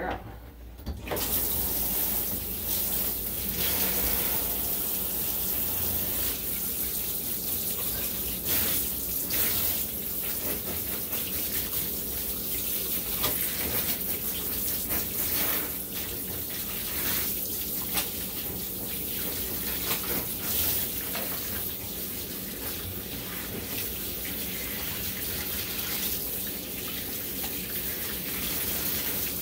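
Handheld shower sprayer running, its water spraying over a wet dog's coat and splashing into the bathtub; the flow starts about a second in and keeps steady.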